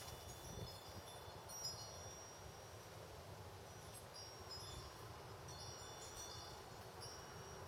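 Faint, scattered high-pitched chiming tones over a low steady hum.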